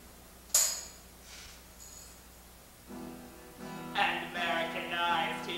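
A tambourine is struck once, sharp and jingling, with a couple of fainter jingles after it. From about three seconds in an acoustic guitar is strummed, and a man starts singing over it near the end.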